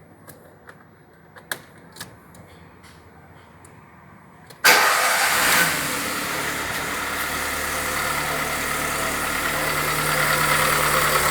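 A few light clicks, then about halfway through the VW Voyage G5's EA111 petrol engine starts, flares briefly in revs and settles into a steady idle. It idles with the engine noise that the owner suspects comes from the hydraulic lifters (tappets), or perhaps a piston.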